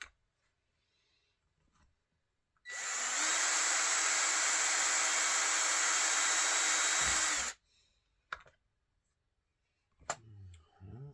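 A small handheld electric power tool runs for about five seconds, spinning up and holding a steady whine, then winding down, followed by a few small clicks and handling knocks.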